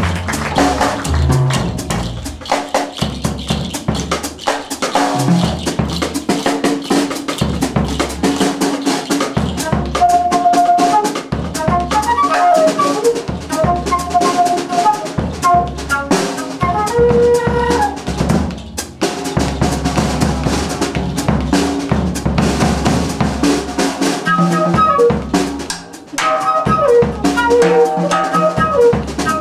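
Live jazz band playing: a busy drum kit with snare, bass drum and cymbals over a bass line, joined by a wind instrument playing a melody from about ten seconds in.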